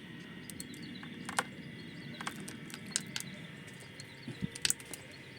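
Scattered short, sharp clicks and taps, about a dozen at irregular intervals, over a steady low background rumble.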